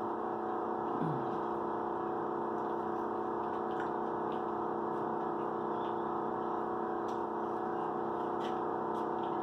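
Steady background hum made of several held tones, with a few faint clicks from people eating fried chicken.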